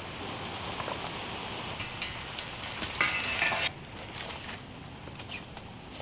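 Rustling, scraping and light knocks of a hunter climbing a tree into his tree stand, with a louder scrape about three seconds in.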